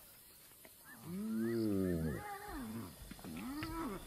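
Spotted hyenas calling while squabbling over a carcass: after a quiet second, one long call that rises and falls in pitch, then a shorter arched call near the end.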